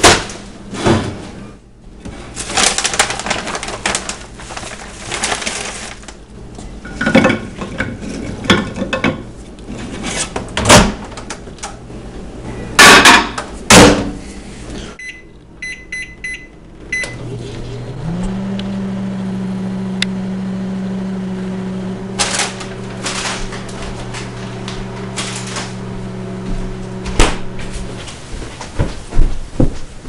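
Kitchen handling clatter of a plate and food, then short keypad beeps. After that a Panasonic inverter microwave oven runs with a steady hum, which steps up slightly in pitch as it starts and stops about ten seconds later.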